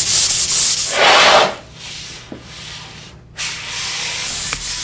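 Hand scuff-sanding with 400-grit stearated sandpaper over a dried wood finish: hissing strokes of paper rubbing the surface under light hand pressure, smoothing the dried coat. A loud stroke ends about a second and a half in, quieter rubbing follows, and after a brief pause about three seconds in the sanding starts again.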